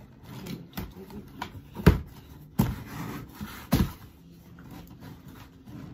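Cardboard shipping box being handled and opened: three sharp knocks about two, two and a half and four seconds in, with smaller clicks and rustling between them.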